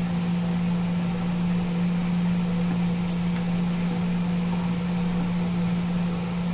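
A steady low mechanical hum at one even pitch, like a fan motor running, with a faint hiss above it.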